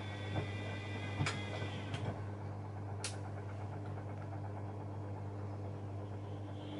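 Bosch Maxx WFL 248Y front-loading washing machine running: a high motor whine stops about two seconds in, leaving a steady low hum, with a few sharp clicks.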